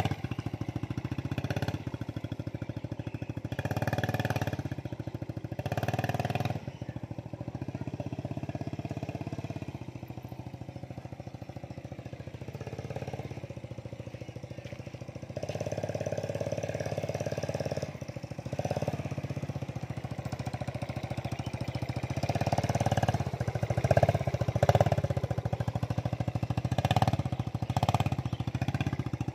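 Small step-through motorcycle engine running under load as it tows a wooden cart through mud, its revs swelling and easing several times with the throttle.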